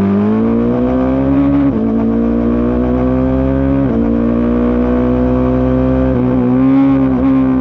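Racing engine under hard acceleration, its pitch climbing steadily and dropping sharply at gear changes about two and four seconds in, with two smaller dips near the end.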